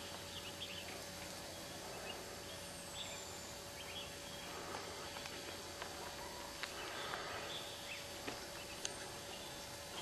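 Quiet outdoor ambience: a steady background hiss with faint, scattered bird chirps, a faint steady hum and a few light ticks.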